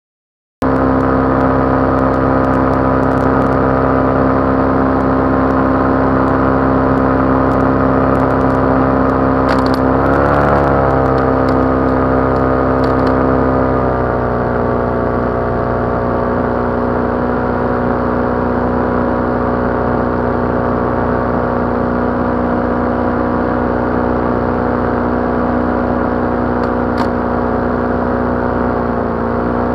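Paramotor engine and propeller running steadily in flight, with scattered sharp clicks over it: the abnormal noise of the speed-bar line's hook striking the propeller. The engine pitch wavers once and settles a little lower partway through.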